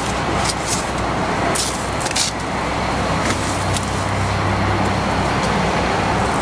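Steady low rumble of a car and parking-lot surroundings, with several short rustles as someone shifts about in a car's open driver's seat with papers.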